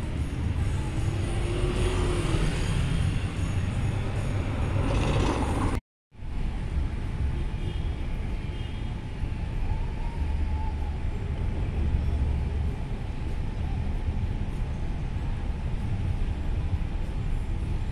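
Outdoor street traffic: a steady low rumble of passing vehicles, with one vehicle passing louder in the first few seconds. The sound cuts out for a moment about six seconds in, then the traffic rumble carries on.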